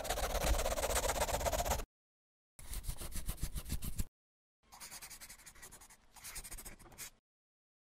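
Pen scribbling on paper as a sound effect: three bursts of rapid scratching, each cut off abruptly. The first is the longest and loudest, and the last is quieter.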